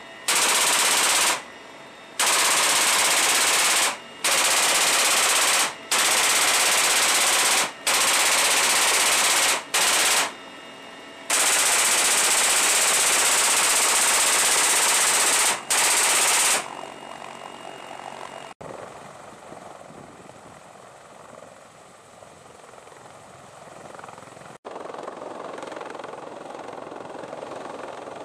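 M2 .50-calibre heavy machine gun fired from the open ramp of a CH-53E Super Stallion helicopter in flight: about eight long bursts of rapid fire over roughly the first sixteen seconds, with the helicopter's noise in the short gaps between them. After the firing stops, a steadier, quieter helicopter noise continues.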